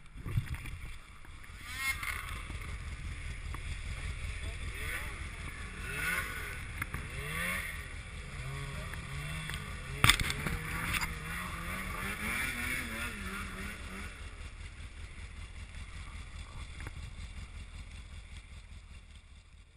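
Arctic Cat 1100 Turbo snowmobile's four-stroke engine running at a low steady idle with the sled stuck in a tree after a crash. There is one sharp knock about ten seconds in, and voices are heard over it.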